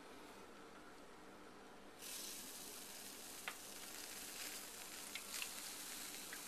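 Food sizzling: after about two seconds of faint room tone, a steady high hiss starts abruptly, with a few light clicks and pops.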